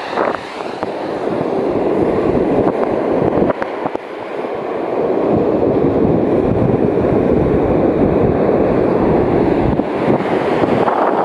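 Continuous rush of sea surf on the shore, mixed with wind buffeting the microphone. It eases briefly a few seconds in, then swells again.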